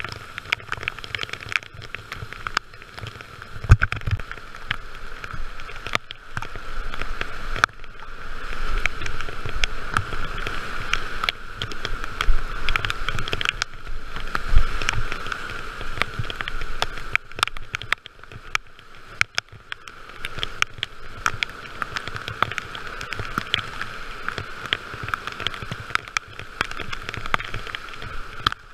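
Rushing whitewater of a rapid churning around a kayak, with paddle strokes and splashes. The rushing swells louder through the middle stretch, with scattered knocks throughout.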